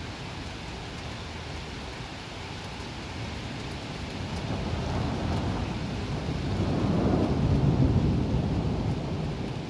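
Rolling thunder over steady heavy rain: a deep rumble builds from a few seconds in, is loudest near the end, then starts to ease off.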